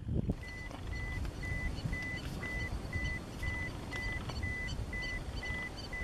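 An electronic beeper sounds a steady high beep about twice a second, starting about half a second in, over a low rumble. Many short high chirps from a flock of small birds run through it.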